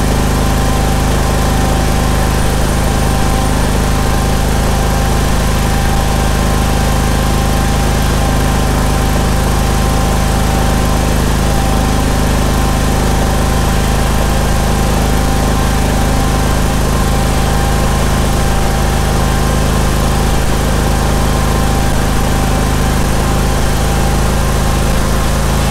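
Steel Green sprayer-spreader's Briggs & Stratton Vanguard 21 hp V-twin engine running at a steady, even speed.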